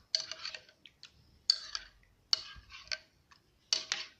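A spoon stirring a mix of grated carrot, carrot water, lemon juice and honey in a dish, in about five strokes, each a sharp clink against the side followed by a short scrape.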